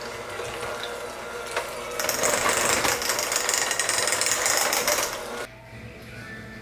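Electric hand mixer running, its beaters whipping cream cheese and eggs into cheesecake batter in a glass bowl. The motor gets louder about two seconds in and cuts off suddenly about a second before the end.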